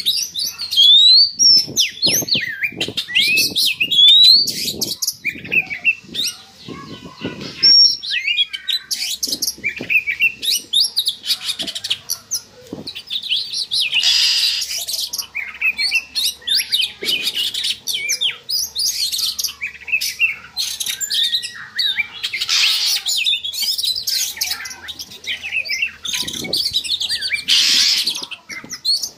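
Oriental magpie-robin (kacer) singing a continuous, varied song of quick rising whistles mixed with harsh clicking and rasping notes. This is the excited song of a bird in breeding condition.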